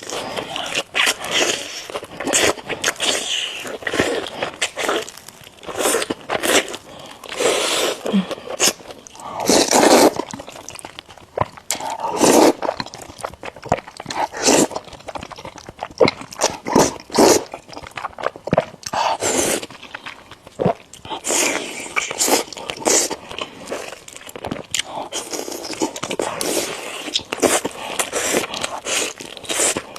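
Close-miked eating: crunchy bites and chewing, with irregular crackles and clicks of the food being bitten and chewed.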